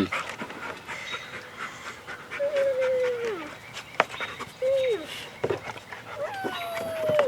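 Dog whining: three drawn-out calls that fall in pitch, the first and last the longest.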